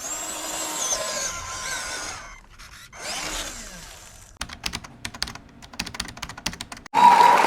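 A small electric motor whirring with its pitch gliding up and down, in two spells, then a run of irregular sharp clicks. Near the end a loud steady pitched sound starts suddenly.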